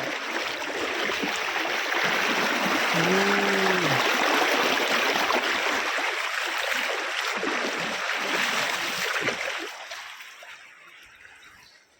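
Rushing stream water: a steady hiss of flowing water that fades away near the end. A brief rising-and-falling voice-like tone comes about three seconds in.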